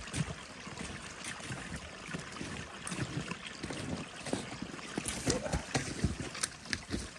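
Footsteps crunching through snow, irregular short crunches over a steady hiss.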